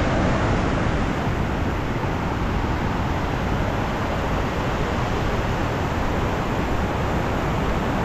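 Shallow river rapids rushing over a flat rock bed: a steady, unbroken noise of fast-moving water.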